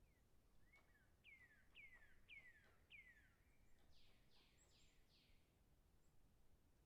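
Faint bird song: four clear whistled notes, each sliding down in pitch, about half a second apart, then four quicker, rougher falling notes, over a low background hiss.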